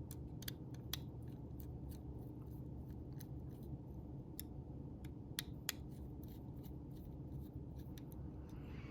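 Faint, irregular small clicks and metallic taps from a folding knife being handled as a part is fitted back onto it during reassembly, over a steady low hum.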